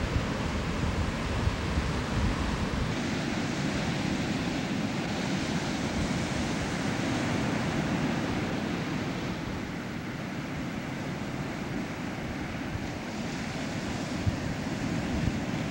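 Ocean surf breaking and washing up the beach, a steady rush of waves, with wind rumbling on the microphone.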